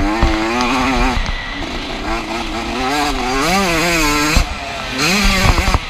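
Yamaha YZ125's single-cylinder 125 cc two-stroke motocross engine, ridden hard with the throttle on and off, its pitch climbing and falling again and again. Near the end it drops sharply, then climbs back up, with a couple of short thumps.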